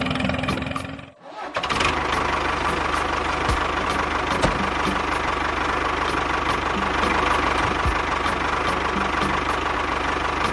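Small motor of a miniature DIY construction machine running steadily with a constant whine, cutting out briefly about a second in, then running on.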